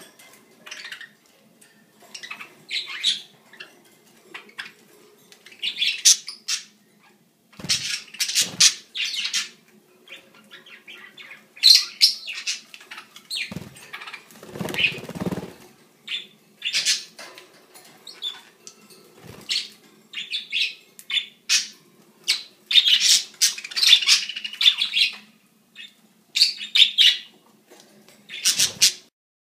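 Budgerigars chirping and chattering in irregular bursts, with wings flapping as the birds flutter and clamber about the cage. A faint steady hum runs underneath.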